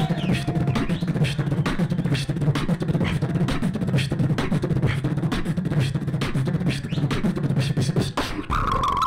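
Human beatboxing amplified through a hand-held microphone: a fast run of vocal clicks and snares over a sustained low vocal bass. Near the end the bass drops out and a single higher held tone sounds, falling slightly.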